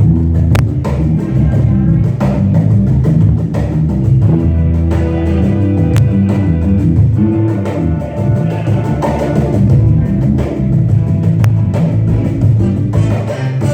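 Live band music with guitar and drum kit, playing continuously with no vocals.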